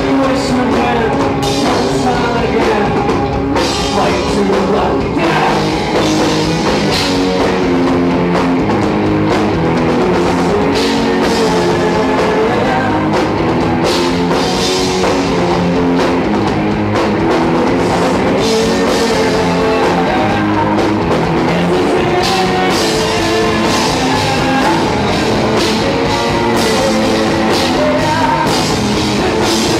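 Live rock band playing loudly and steadily on electric guitars, bass guitar and drum kit.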